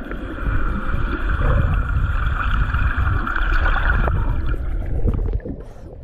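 Muffled rush and low rumble of lake water heard through a camera held underwater beside a swimmer, with a steady high hum through the first four seconds. The rumble drops away about five seconds in as the camera comes up out of the water.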